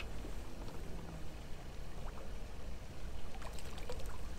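Water lapping against the hull of a small fishing boat on a choppy lake, with a steady low rumble of wind and water. A low steady hum fades out about a second in, and there are a few faint ticks near the end.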